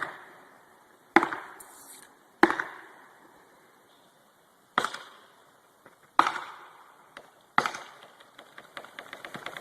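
Six sharp chopping strikes on wood, spaced about a second or two apart, each fading away over about a second. Near the end comes a fast run of faint clicks.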